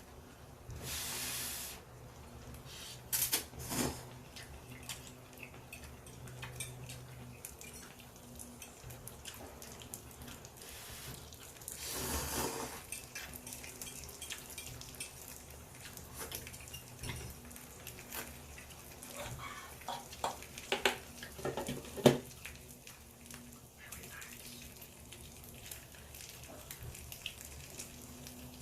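Kitchen sounds: short spells of running water and scattered clinks and knocks of dishes and utensils, with the sharpest cluster of clinks about twenty seconds in.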